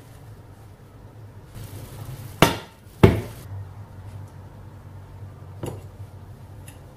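Two loud clanks of kitchenware about half a second apart, each ringing briefly, over a short hiss; a faint clink follows a couple of seconds later.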